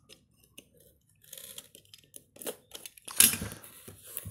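Snap-off utility knife cutting the tape on a cardboard toy box, with scratchy scrapes and crunches of the cardboard being handled; the loudest crunch comes about three seconds in.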